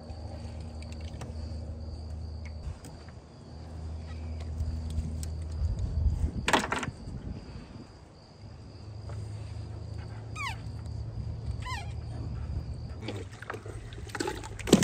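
A wet cast net being hauled up and gathered with fish in it in a flat-bottomed fishing boat, with one loud brief rush of noise about six seconds in. A steady low hum runs underneath, and two short falling whistles sound a little after ten seconds.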